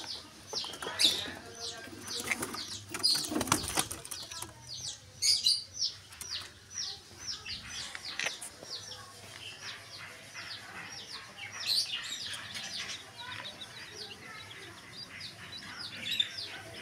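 A group of chicks peeping continuously: rapid, short, high peeps that each slide downward in pitch. There is a brief scuffle of movement about three seconds in.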